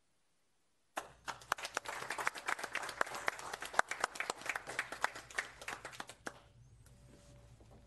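Small group of people applauding, separate hand claps clearly heard. The applause starts suddenly about a second in and dies away after about five seconds, leaving quiet room noise.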